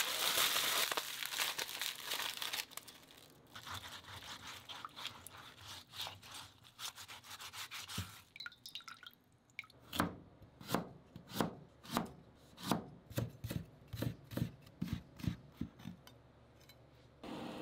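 Aluminium foil crinkling as it is crumpled into a ball, then the foil ball scrubbing the skin off a burdock root in a bowl of water, with soft rubbing and splashing. From about ten seconds in, a Global kitchen knife chops the burdock on a cutting board in regular strikes, about two a second.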